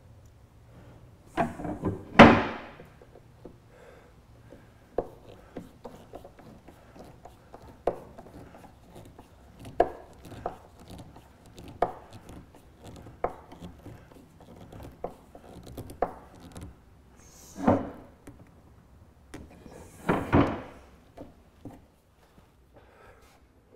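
Hand screwdriver working screws into a bronze mast-partner fitting on a wooden boat's coaming: irregular clicks and scrapes about once a second, with a few louder knocks of tools and parts being handled, the loudest about two seconds in.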